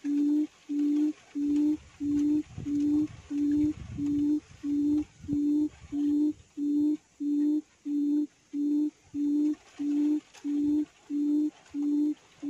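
Recorded quail call played through a loudspeaker as a lure: one low hooting note repeated evenly, a little over twice a second.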